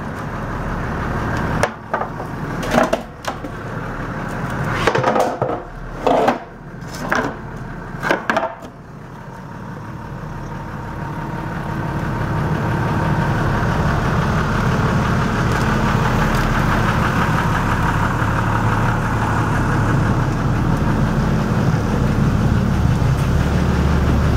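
A string of hard knocks and thuds on the boat's deck and hatch covers, some single and some in quick clusters, over the first several seconds. Then a steady low rumble swells up and holds.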